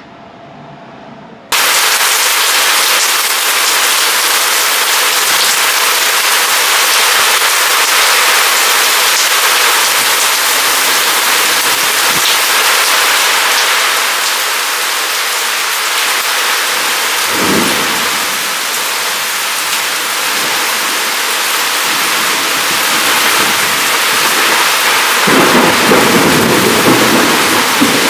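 Thunderstorm with heavy rain and wind gusting to about 47 mph: a loud, steady hiss that starts suddenly about a second and a half in. A brief low rumble of thunder comes near the middle and a longer one near the end.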